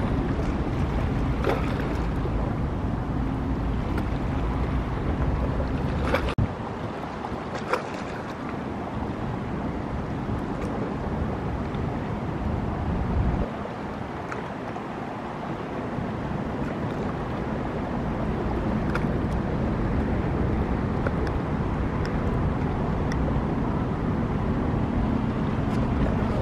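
Motorboat engines running on the water with wind noise on the microphone: first a center-console boat on twin outboard motors, then, after a quieter stretch in the middle, a bowrider's engine getting louder as it approaches.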